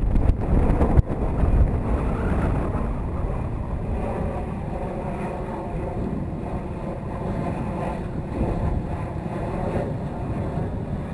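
Wind buffeting the microphone of a kayak-mounted camera, with water moving against the kayak's hull underneath. There are a couple of knocks in the first second.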